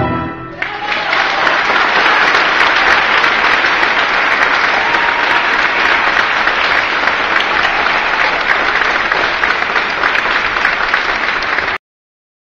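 The last chord of a tango orchestra dies away, and within a second a theatre audience breaks into steady applause. The applause cuts off abruptly near the end.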